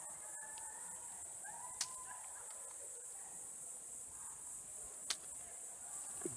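Steady high-pitched drone of insects, with two sharp clicks, about two and five seconds in.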